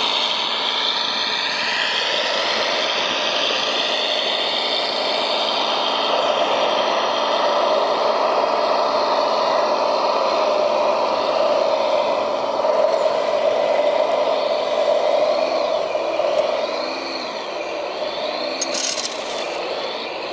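Electric drive motors and gearboxes of radio-controlled model machines whining over a steady mechanical hum. The whine rises and falls in pitch again and again as the models speed up and slow down.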